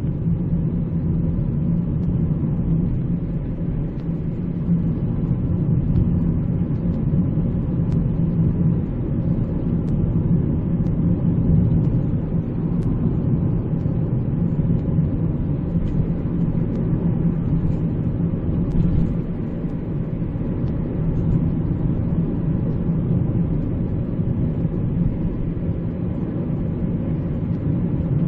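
Cabin noise of a 2018 Honda Civic with the 1.8 i-VTEC four-cylinder engine, on the move: a steady low rumble of engine and road, with a few faint light clicks.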